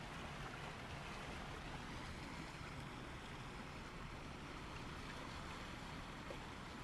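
Faint, steady outdoor rushing noise with no distinct events, of the kind made by moving water and wind on an open microphone.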